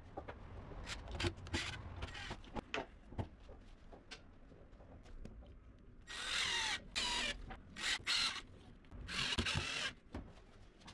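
Cordless drill-driver driving screws through plastic corner brackets into laminated MDF panels, in three short bursts of motor whine from about six seconds in. Before that, knocks and rubbing as the wooden panels are handled and set in place.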